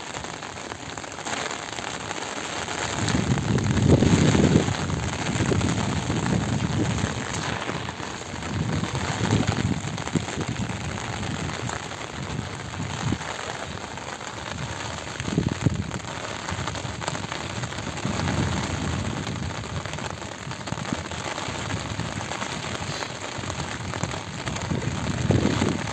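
Steady rain pattering on a flooded rice paddy, with several bouts of low sloshing as legs wade through the shallow water.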